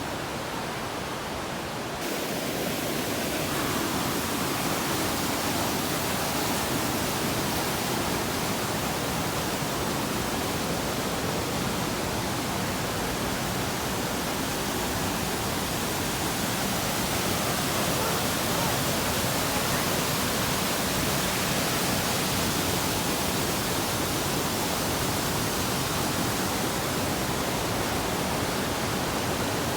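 Steady noise of falling water from a waterfall, even and unbroken, getting a little louder and fuller about two seconds in.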